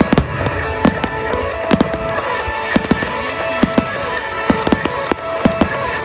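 Fireworks going off in an irregular run of sharp bangs, at times several a second, with music playing alongside.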